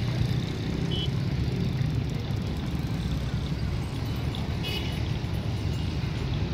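Steady low engine rumble, even and unbroken.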